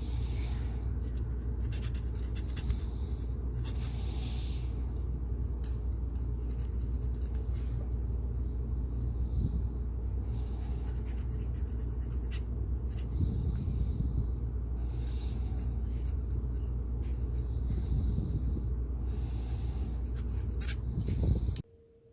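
Scratchy hand rubbing and scrubbing strokes on a small die-cast metal toy car body, over a steady low hum. All of it cuts off abruptly near the end.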